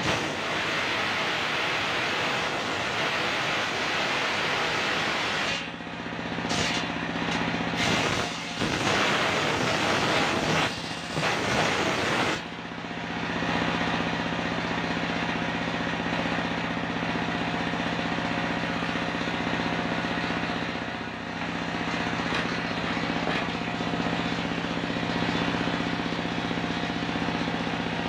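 A stationary engine drives a large belt-driven circular saw, whose blade cuts through coconut-palm wood for the first twelve seconds or so, loud and varying. Then the blade spins free and the engine runs steadily with a low hum.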